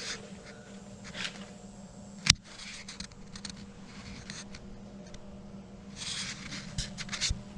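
One sharp knock about two seconds in, with short scraping and rustling noises scattered around it over a steady low hum, from handling the ripper and tools during a welding job.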